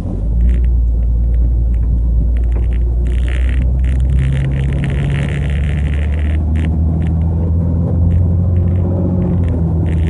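The 1989 Jeep Cherokee's 4.0 L inline-six runs with a steady low rumble, heard from inside the cab as it is put in drive and gets under way. Its pitch climbs a little about halfway through, and there are a few light clicks.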